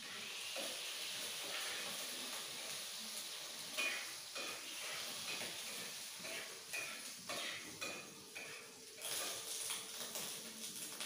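Food frying and sizzling in a kadai, with a metal spatula stirring and scraping the pan. From about four seconds in there is a series of short scrapes and clinks, some ringing briefly.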